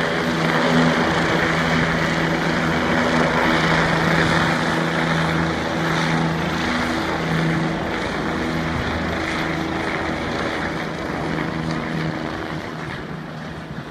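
Helicopter flying past and climbing away: a steady hum of engine and rotors over a wash of rotor noise, growing fainter near the end as it draws off.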